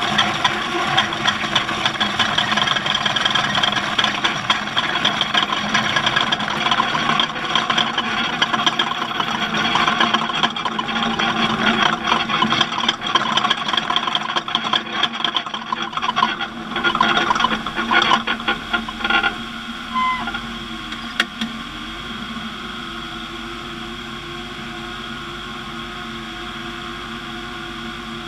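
Off-road race vehicle running, with heavy rattling and clatter over the engine. About two-thirds of the way through, the clatter stops and a steady hum remains.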